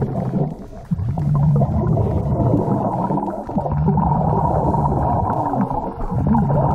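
Muffled underwater rumble and bubbling from scuba divers' regulators, heard through a waterproof camera housing, swelling in repeated low surges.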